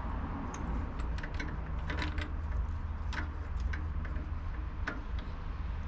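Scattered metal clicks and rattles from handling the chuck and drill bit of a Ryobi drill press, over a steady low hum.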